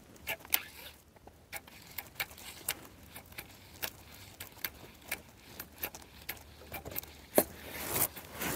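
Irregular sharp clicks and light knocks, about two or three a second, with a louder knock near the end.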